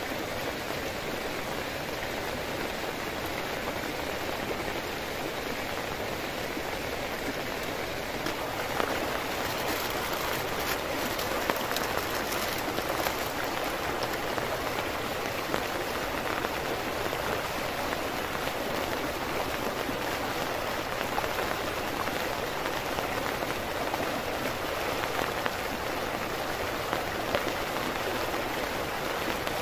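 Steady rain, an even hiss of falling drops, a little louder from about nine seconds in.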